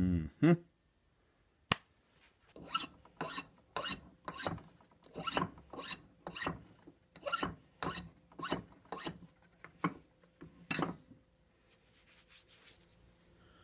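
A hand file drawn across the end of a freshly turned wooden billet: about eighteen even strokes at roughly two a second, after a single sharp click.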